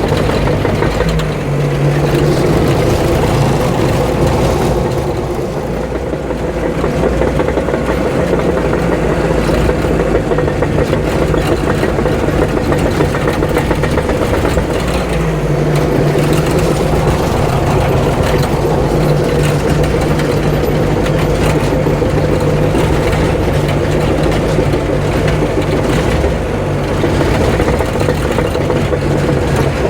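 Diesel engine of a piece of heavy earthmoving equipment running under load while stripping topsoil, its pitch shifting up and down a few times as the engine works.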